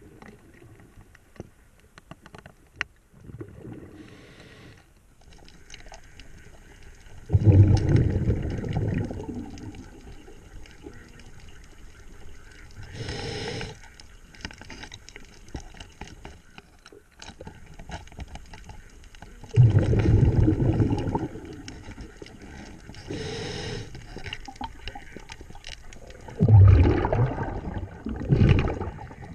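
A diver breathing through a regulator underwater: three long bursts of exhaled bubbles rumbling about 7, 19 and 26 seconds in, with shorter hissing inhalations between them. A few faint clicks in the first seconds.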